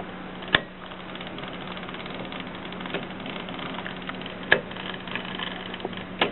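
Mercedes 6 manual typewriter mechanism giving a few isolated sharp clacks, three loud ones a couple of seconds apart with fainter clicks between, over a steady low hum.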